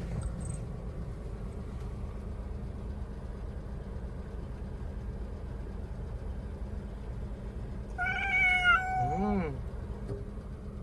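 Cat meowing near the end: one drawn-out meow that bends in pitch, over a steady low background rumble.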